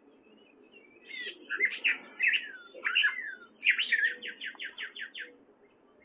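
Gray catbird singing: starting about a second in, a jumbled phrase of varied, changing notes, ending in a quick run of about nine repeated notes.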